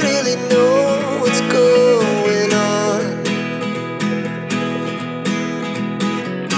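Background music: strummed acoustic guitar with a wavering lead melody over it.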